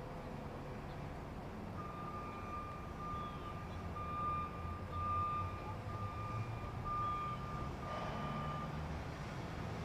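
Truck engine running with a low rumble while its reversing alarm beeps about once a second. The alarm starts about two seconds in and stops near the end.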